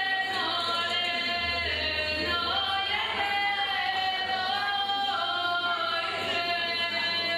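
A group of women singing a southern Serbian folk song together, unaccompanied, in long held notes that step and slide from one pitch to the next.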